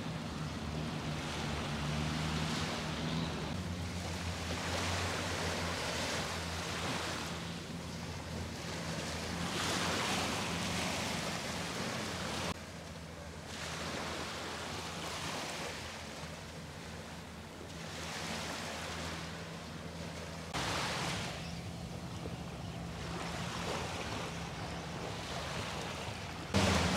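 Sea waves washing onto a beach, swelling and ebbing every few seconds, over a steady low hum. The sound changes abruptly twice.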